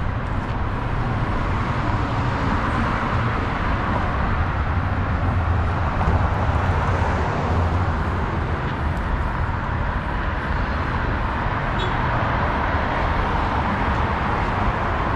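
Steady outdoor city street background: an even low rumble with a hiss above it, and no single event standing out.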